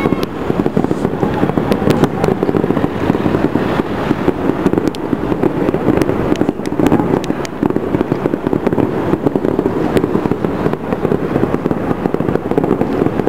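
Fireworks display: a dense, continuous barrage of bursting shells and crackle, with many sharp pops.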